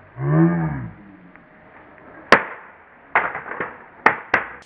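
A short shout, then a single sharp crack as a homemade bamboo axe strikes a plastic action-figure toy, followed by several lighter clattering knocks as the toy and loose pieces hit the concrete.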